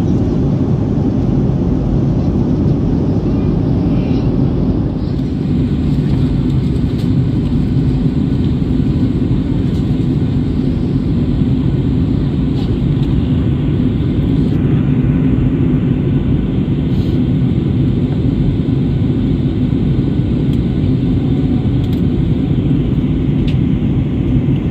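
Cabin noise inside a Boeing 737 airliner in flight: a steady, deep rush of engine and airflow noise that does not change.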